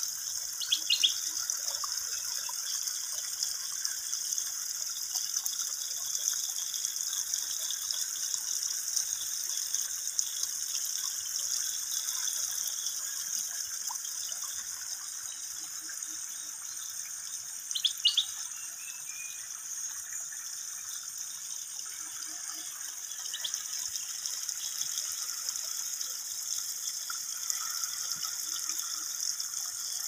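River water flowing past the bank as a steady rushing hiss. A bird gives a short burst of chirps about a second in and again near the middle.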